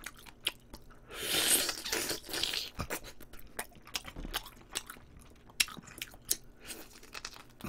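A man biting and chewing braised short rib (galbijjim) close to the microphone: a run of short, wet mouth clicks, with a longer hissing sound from about a second in.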